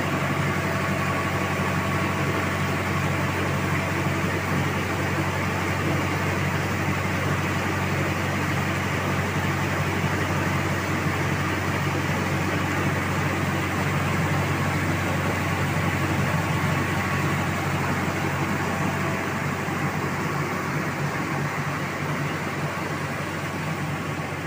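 Small engine-driven rice milling unit (huller and polisher) running steadily: a constant low machine drone with a broad hiss over it.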